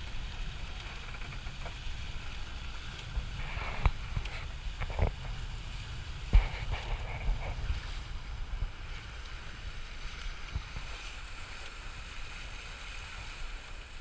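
Wind buffeting the microphone over open water, a steady low rumble, with water splashing and a few sharp knocks near the middle.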